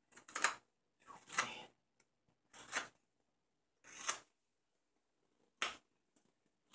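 Carving knife slicing shavings from the outside of a wooden kuksa. There are six separate cuts about a second apart, each a short slice that swells and then stops abruptly.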